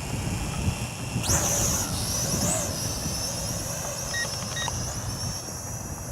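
LBLA Aurora foldable toy quadcopter's small electric motors and propellers spinning up about a second in: a high-pitched whine that rises, swells once more, then holds steady as the drone lifts off. Wind buffets the microphone throughout, and two short electronic beeps sound about four seconds in.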